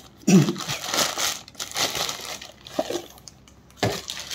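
Plastic packaging crinkling and rustling in irregular bursts as a small cardboard box is opened and a hookah part in a clear plastic bag is handled, with a short voice sound near the start.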